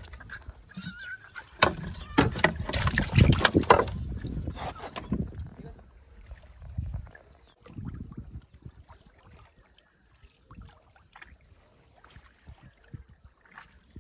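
Loud, irregular knocking and rustling as a caught fish and a net are handled in the bottom of a boat, for about the first five seconds. Then quieter scattered small knocks and faint water sounds around the boat.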